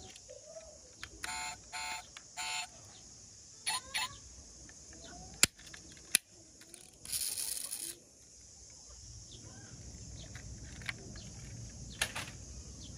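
Three short electronic beeps about a second in, then sharp plastic-and-metal clicks as the doors of a small die-cast toy car are opened, with a brief hiss in the middle.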